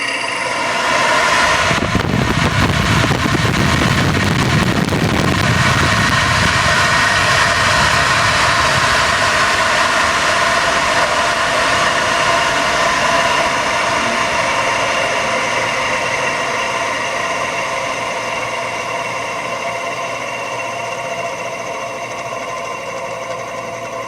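Hoover Model 3 upright vacuum cleaner's motor and 64-blade fan running, a steady whine made up of several tones. A heavy low rumble sits under it from about two to six seconds in, and the sound grows slightly quieter toward the end.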